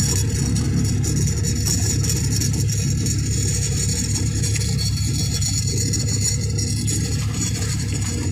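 Inboard engine of a wooden motor bangka running steadily under way: a constant low drone with a steady hiss above it.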